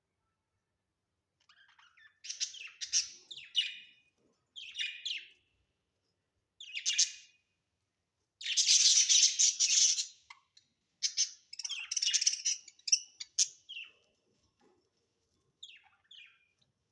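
Budgerigars chirping and chattering in bursts, with a loud, dense stretch of chatter about a third of the way through and a few faint chirps near the end.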